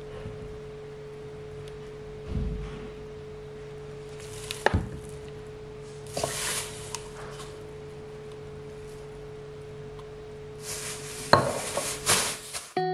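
Groceries being unpacked on a kitchen counter: clear plastic bags rustling and bottles and a can set down with sharp knocks, about five seconds in and again near the end, over a steady hum.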